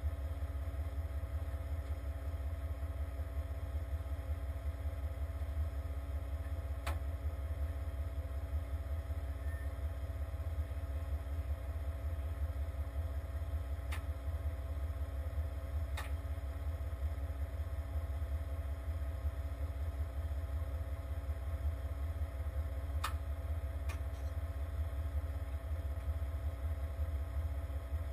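Heavy truck engine idling steadily, a constant low rumble, with five sharp clicks spread through it.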